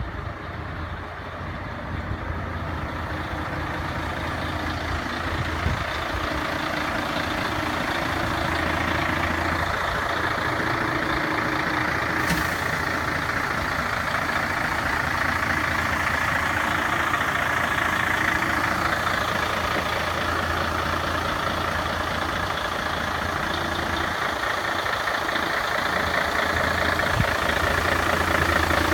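Diesel engine of a 2007 Mercedes-Benz 2532 refrigerated truck idling steadily, growing gradually louder. A brief click about twelve seconds in.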